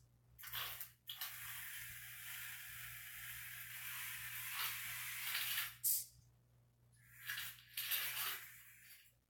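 Small robot car's electric drive motors running in stop-and-go spurts as it steers: one long run of whirring noise, then shorter bursts, over a steady low hum.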